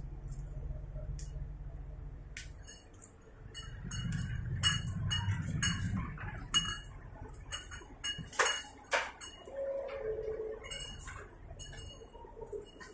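Inside a train carriage: a low hum that fades out about three seconds in, then irregular light clinks and clicks, with a couple of louder knocks just past the middle.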